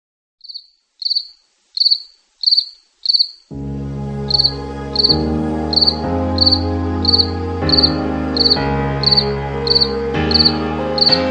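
Cricket chirping at an even pace, about one and a half chirps a second, each chirp a quick trill. About three and a half seconds in, sustained background music with slowly changing chords comes in under the chirping.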